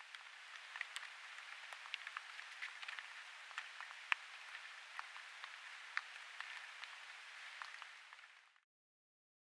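Steady hiss from a trail camera's microphone with many scattered sharp ticks and crackles, cutting off abruptly to silence near the end.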